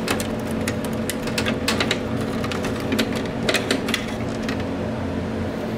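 Irregular clicks and light knocks of hands handling and loading items into a vending machine, over a steady hum.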